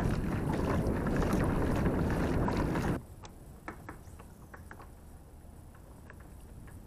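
Wind rumbling on the microphone, loud and uneven, cut off abruptly about three seconds in. After that, quieter with faint scattered clicks from a baitcasting rod and reel being handled.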